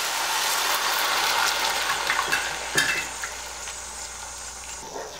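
About half a cup of water poured onto jaggery in a hot pan, sizzling, the hiss loudest at first and slowly dying down. A short knock near three seconds in.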